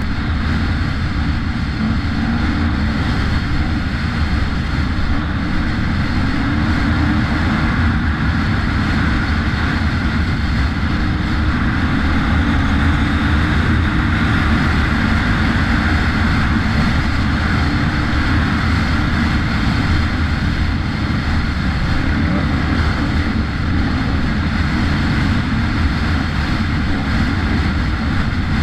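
Enduro dirt bike engine running steadily at speed, with heavy wind rumble on the camera microphone.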